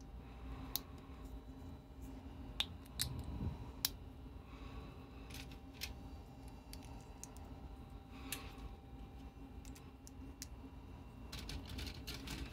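Plastic Lego bricks being handled and pressed together, giving scattered sharp clicks and snaps, with a quick run of clicks near the end.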